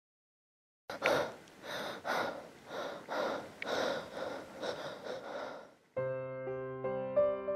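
A person breathing fast and hard, gasping about twice a second for some five seconds. Then a piano starts playing about six seconds in.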